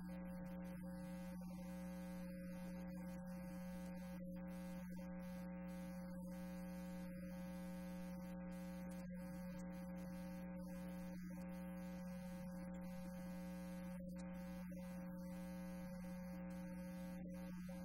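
Steady electrical mains hum, a strong low buzzing tone with fainter higher tones above it, unchanging in level.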